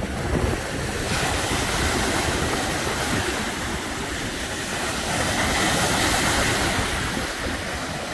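Lake Michigan waves washing onto the beach, a steady surf noise that swells twice, with wind rumbling on the microphone.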